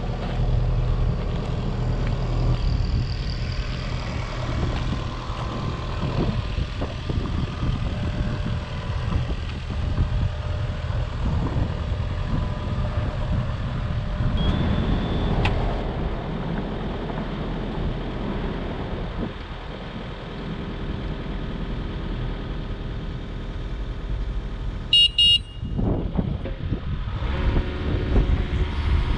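2018 Yanmar ViO45-6A mini excavator's diesel engine running, its level rising and falling. Near the end a short, loud horn beep.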